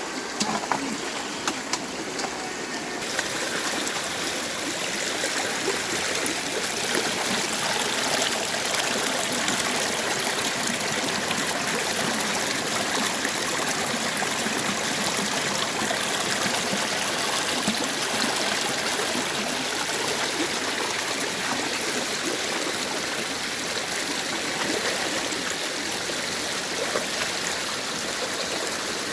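Steady rushing of running water, like a stream or trickle, with a few faint ticks.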